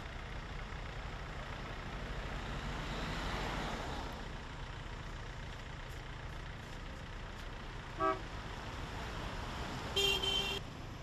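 Street traffic: a steady low rumble of cars, with one vehicle swelling past about three seconds in. A brief horn toot comes about eight seconds in, and a louder vehicle horn honks for just over half a second near the end.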